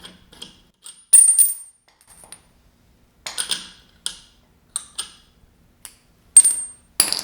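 Small steel parts and hand tools clinking and clanking against each other as they are handled and set down while a clutch is taken off a classic Mini A-series engine: several sharp, ringing metal strikes at irregular intervals, loudest about a second in and near the end.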